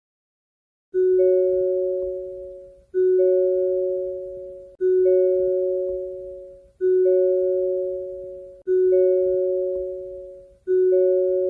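Hyundai door-open warning chime: a two-note electronic chime, a low note followed a moment later by a higher one, repeating about every two seconds and fading after each strike. It starts about a second in and sounds six times.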